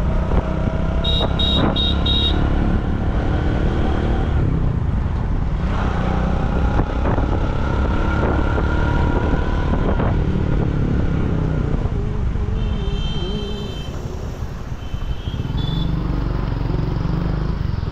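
Riding a two-wheeler through city traffic: a steady engine and road rumble with wind buffeting the microphone. A quick series of four short high beeps comes about a second in, and more high beeping tones come later on.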